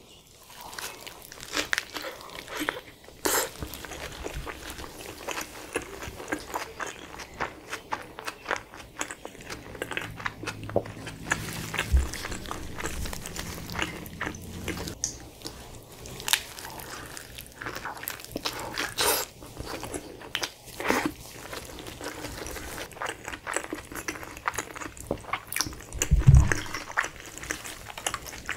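Close-miked biting and chewing of a spicy chicken wrap with lettuce: a steady run of crunches, crackles and wet mouth clicks. A single low thump a couple of seconds before the end.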